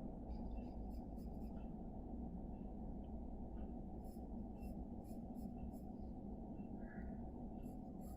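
Sketching strokes scratching faintly on paper in quick runs, three bursts of short strokes, over a steady low background hum.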